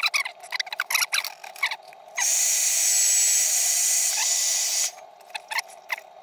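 Hair dryer blowing a steady rush of air for about three seconds, starting about two seconds in and cutting off near five seconds, to dry freshly glued wooden parts. Short clicks and squeaks of the wooden parts being handled come before and after it.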